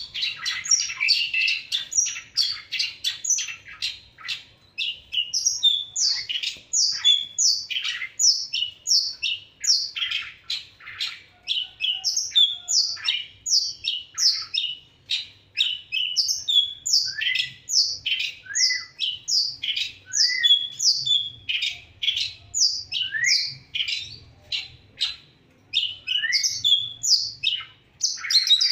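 Caged long-tailed shrike (cendet) singing a fast, continuous string of short high chirps, many sweeping sharply down in pitch, about two to three a second.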